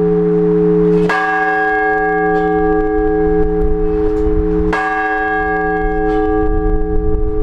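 Large Orthodox church bell struck in slow, measured single strokes, the blagovest that calls to the all-night vigil. It strikes twice, about three and a half seconds apart, and each stroke keeps humming until the next.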